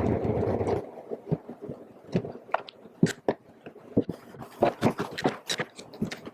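A steady noise cuts off just under a second in. It is followed by irregular sharp clicks and light knocks of wooden parts and clamps being handled for a glue-up.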